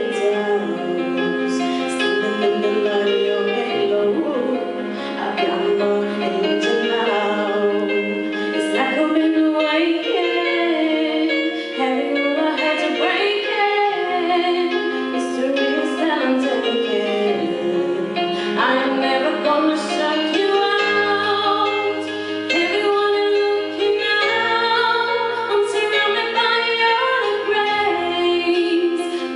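A woman singing a song with vibrato over instrumental backing music with a bass line.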